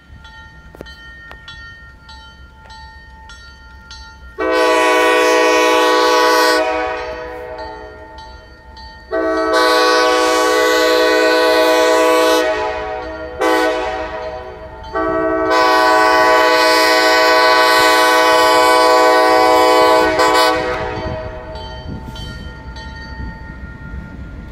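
Diesel locomotive air horn sounding the grade-crossing signal, long, long, short, long, with the last blast held about five seconds; the horn plays a chord of several notes. A faint, fast-repeating ringing runs under it, and the train's low rumble grows near the end.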